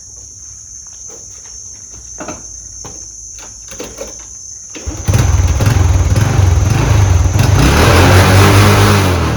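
Honda Wave 110 motorcycle's single-cylinder four-stroke engine starting about five seconds in after a few light clicks, then running at a fast idle to warm the oil before draining.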